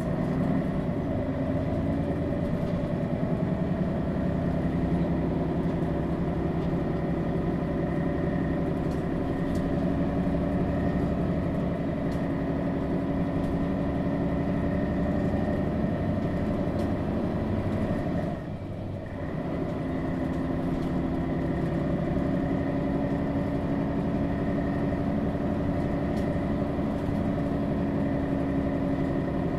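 Diesel engine of a Mercedes-Benz Citaro G articulated bus, a Daimler OM 457 hLA, running steadily under way. About two-thirds of the way through, the sound briefly drops away for about a second, then picks up again.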